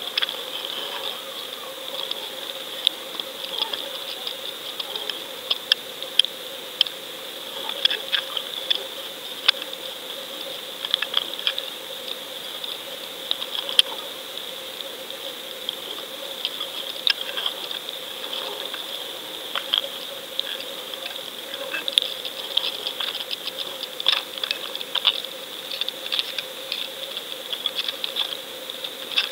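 Underwater sound picked up through a fishing camera's housing on the line: a steady high whine and a lower hum, with irregular crackling clicks and ticks that come thicker near the end.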